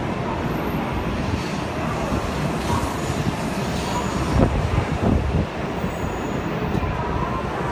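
Shinkansen bullet train moving slowly past along a station platform: a steady rumble and hiss of the passing cars, with a couple of louder bumps about four and five seconds in.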